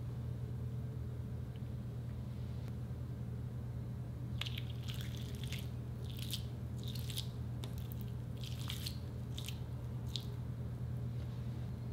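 Giant water-bead Orbeez being squeezed and crushed by hand: a run of wet squelching crackles starts about four seconds in and goes on for some six seconds, over a steady low hum.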